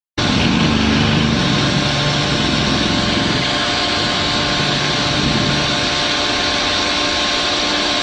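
Heavy construction machinery's engine running steadily, a loud, even noise with a faint steady whine in it.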